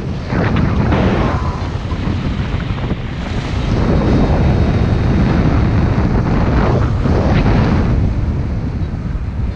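Wind rushing over the camera's microphone during paraglider flight: a steady, low, buffeting rush that swells a few seconds in.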